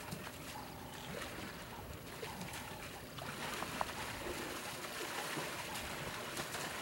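Elephants wallowing in mud: continuous wet sloshing and splattering, with small scattered splats.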